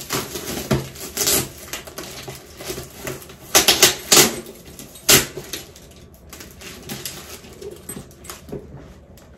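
Paper and plastic shipping packaging rustling and crinkling as it is pulled apart by hand, with a run of sharper crackles about three and a half to five seconds in.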